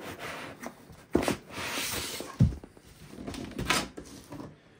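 Dense foam packing being pulled out of a cardboard box around a hard case, rubbing against the cardboard for about a second, with a knock before it, a low thump after it and a couple of knocks near the end.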